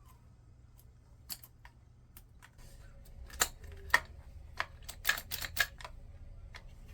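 Small plastic and metal chainsaw parts clicking and tapping as they are handled and fitted back on by hand, with a quick cluster of sharper clicks in the second half.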